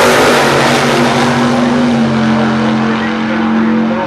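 Two drag-racing cars running at full throttle down the strip, their engines loud and steady, the sound growing duller in the second half as they pull away toward the finish.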